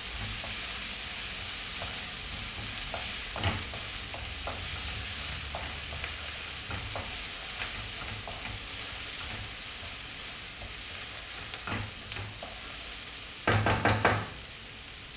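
Onions, green chilies and whole spices frying in mustard oil in a pan: a steady sizzle with scattered scrapes and taps of a wooden spatula stirring, and a louder clatter near the end.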